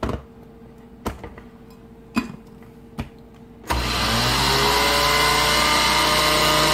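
A few short knocks as the blender jar and its lid are fitted. About four seconds in, a countertop blender's motor starts, spins up and runs steadily, grinding oats and dry ingredients into a flour.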